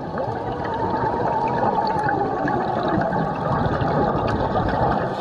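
Muffled, steady underwater rushing noise picked up by a camera in a waterproof housing, with faint scattered clicks.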